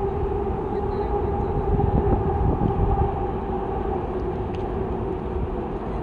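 Passenger train crossing a long railway bridge: a steady low rumble with a continuous drone.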